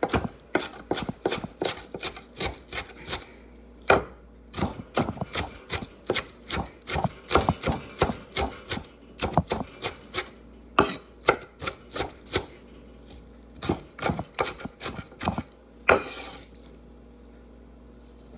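Kitchen knife chopping celery on a wooden cutting board: quick, uneven knocks of the blade hitting the board, about three or four a second, stopping a couple of seconds before the end.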